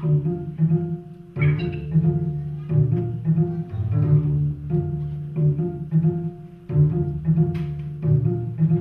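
Music with a low string line playing a repeating pattern of short, sharply struck notes, several a second.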